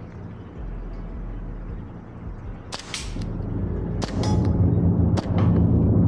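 Gas blowback airsoft pistol with a Hi-Capa system being fired at a target, several single shots about a second apart starting about three seconds in. A low steady drone runs underneath.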